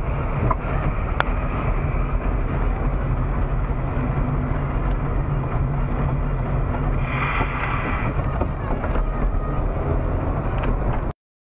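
Steady engine and road noise inside a moving car's cabin, picked up by a dashcam, with a single sharp click about a second in. The sound cuts off suddenly near the end.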